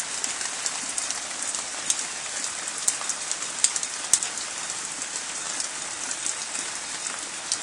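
Steady rain falling on garden plants: an even hiss with scattered sharp taps of single drops.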